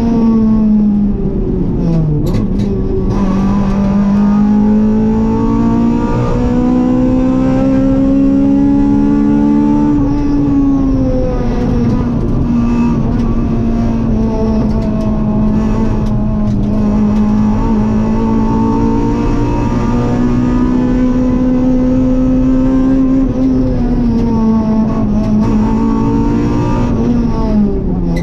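Rally car engine heard from inside the cabin, pulling under load: its note climbs steadily for several seconds, drops sharply as the throttle comes off about ten seconds in, climbs again, and falls away once more near the end.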